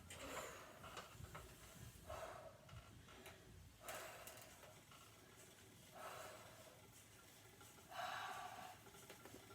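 A person's faint, rhythmic breathing while pedalling an exercise bike, with a short breath out about every two seconds.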